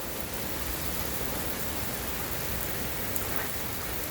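Steady heavy rain coming down, an even hiss of drops hitting the ground and nearby surfaces during a storm.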